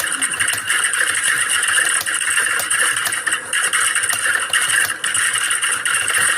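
Computer keyboard typing: a rapid, unbroken clatter of keystrokes.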